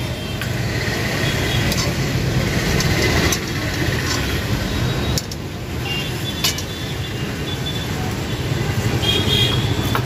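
A long metal ladle stirring and scraping through a steel wok of thick sauced gobi Manchurian, with a few sharp clinks of metal on metal, over a steady low rumble of street noise.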